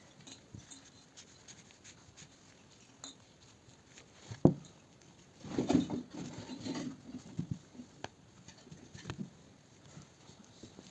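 Scattered light clicks and knocks with soft rustling, as of objects being handled on a work surface, with one sharper knock about four and a half seconds in.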